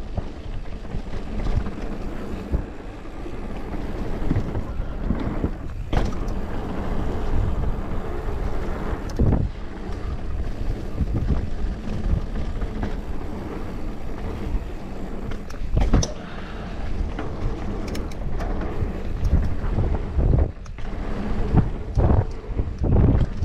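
Wind rushing over the microphone and mountain bike tyres rolling fast over a leaf-strewn dirt trail. Several sharp knocks and rattles from the bike come through as it hits bumps.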